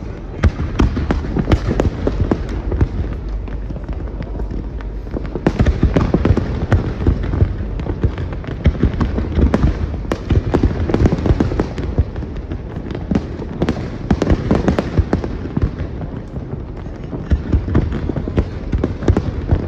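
Fireworks display: a dense, continuous run of bangs and crackles over deep low booms, coming in denser waves every few seconds.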